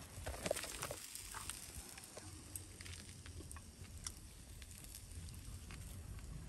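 Meat sizzling faintly on a small charcoal grill, with scattered light clicks.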